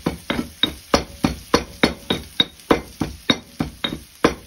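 Stone pestle pounding garlic and ginger in a stone mortar: a steady run of sharp knocks, about three a second.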